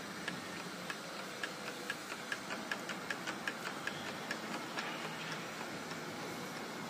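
Handmade beech-wood whirligig turning, its wire rods and bobbing wooden horses clicking in a quick, even rhythm of about five clicks a second that fades out near the end.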